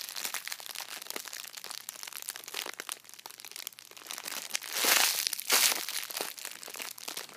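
Clear plastic packaging crinkling as a squishy bun toy is squeezed and turned inside it, with two louder rustles about five seconds in.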